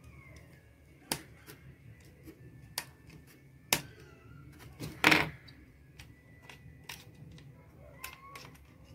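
Scattered sharp metallic clicks and taps of a small screwdriver on the brass screw terminals of a plastic electrical switchboard as the wires are tightened in. The loudest is a short clatter about five seconds in.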